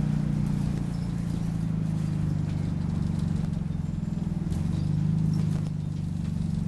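Optare Solo bus's diesel engine running, heard from on board: a steady low drone with a fast even pulse, easing slightly in level near the end.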